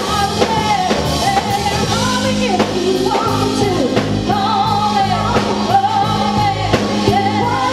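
A live band of keyboard, drums and guitar playing while a woman sings the lead and three women sing backing harmonies with her.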